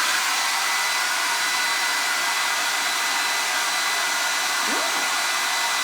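Hand-held hair dryer running steadily: an even rush of air with a thin, high, steady whine.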